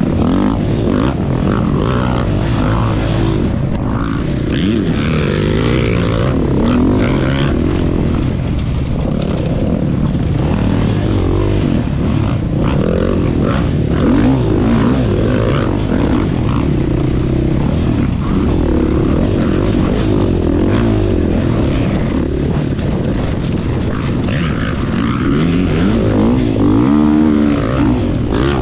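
GasGas MC 450F dirt bike's single-cylinder four-stroke engine revving hard, its pitch rising and falling again and again as the rider works the throttle and gears at race pace.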